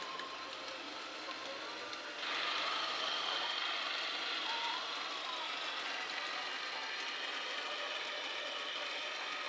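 Model railway train running: a steady mechanical hum with faint clicks at first. About two seconds in it steps up to a louder, steady engine-like drone with several high held tones as a model diesel locomotive approaches.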